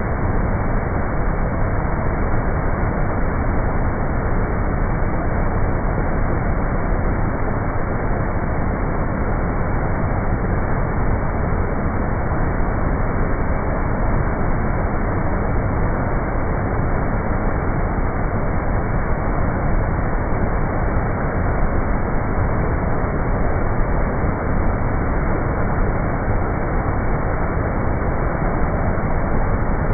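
Rushing water, a steady, unbroken roar of flowing water with no pauses or changes.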